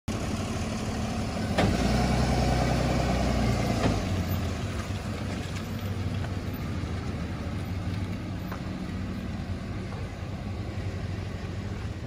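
Flatbed tow truck's engine pulling away. It is loudest for the first few seconds, with a knock at the start and end of that stretch, then runs steadier and slowly fades as the truck drives off.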